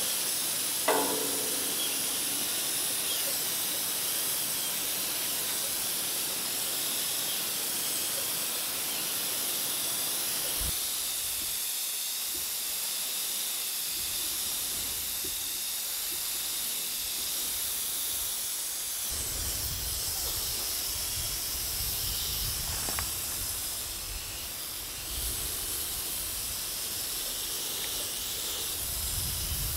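Gravity-feed paint spray gun hissing steadily as compressed air sprays paint onto a metal gate. A low rumble comes in about two-thirds of the way through.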